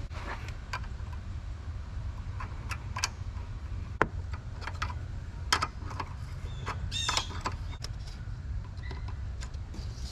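Small metal clicks and taps of hand tools and fittings as a new air valve and its air-line connector are fitted at the top of a Jeep Grand Cherokee's front air strut, with a short squeak about seven seconds in. A steady low rumble runs underneath.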